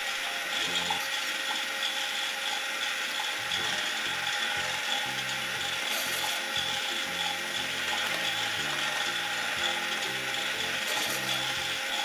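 Just Like Home toy microwave running, its turntable motor and gears making a steady mechanical whir as the plate turns.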